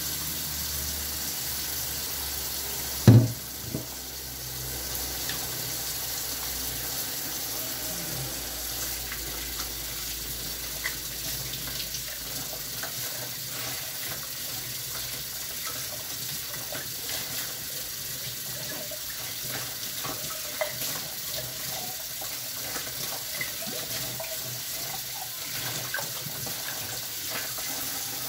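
Kitchen tap running steadily into a stainless-steel sink while drinking glasses are washed and rinsed under it, with small clinks as the glasses are handled. One loud knock comes about three seconds in.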